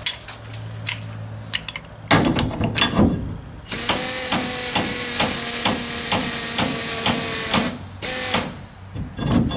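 Pneumatic trap turner being clamped onto a hopper trailer's trap drive with a few metal clunks, then running for about four seconds: a loud air hiss with a steady hum and regular ticking about three times a second as it turns the trap, followed by a brief second burst of hiss.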